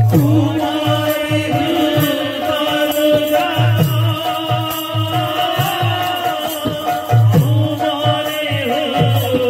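Live baithaki kirtan music: low drum strokes about twice a second, small metal cymbals struck in time, and a held, sung melody line over them.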